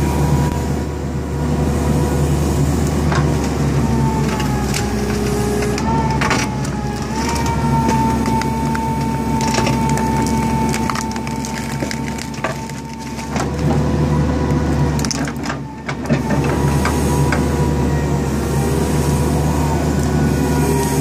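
Case 81P hydraulic excavator working under load, its engine running with a steady high whine, while its riddle bucket rips out a tree stump, roots and wood cracking and snapping several times.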